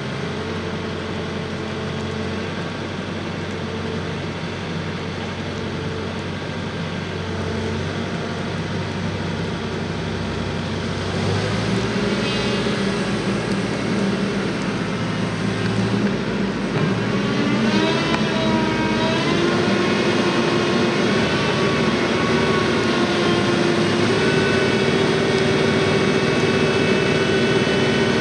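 Caterpillar 355 telehandler's diesel engine running steadily. About eleven seconds in it speeds up and gets louder. A few seconds later its pitch wavers up and down before holding at a higher steady speed toward the end.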